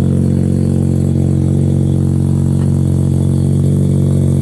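Big-turbo Mazda RX-7's built 13B two-rotor rotary engine idling steadily.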